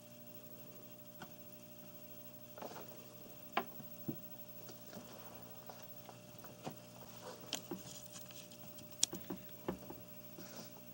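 Scattered small clicks and taps of DIP switches being flipped and a reset button pressed on a Commodore 64 cartridge-dumping adapter, over a faint steady hum.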